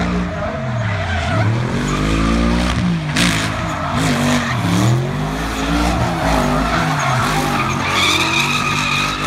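Two drift cars sliding in tandem, a Toyota 1JZ straight-six and a Mercedes 6.3 AMG V8. The engines rev up and fall back again and again through the slide, and the tyres screech, with a sharper squeal near the end.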